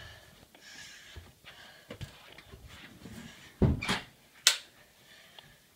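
Handling noise of a phone being moved about: soft rustling, with two sharp knocks about three and a half and four and a half seconds in.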